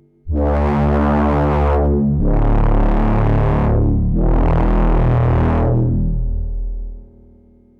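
Eowave Quadrantid Swarm hybrid synthesizer playing a step-sequenced pattern: three long sustained notes of about two seconds each, full of overtones and changing pitch at each step. The last note fades out about a second before the end.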